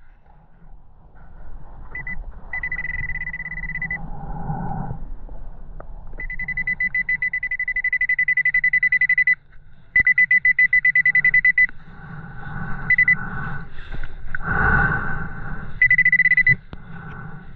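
Nokta Pulsedive underwater metal detector giving its high, rapidly pulsing buzz in several bursts, the longest about three seconds, signalling metal under the coil. Between and beneath the bursts there is a muffled underwater rumble of water movement and handling.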